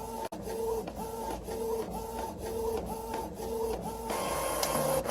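Printer running, its mechanism cycling in a regular rhythm of about two strokes a second. About four seconds in it changes to a steadier, noisier whir that ends in a short loud burst.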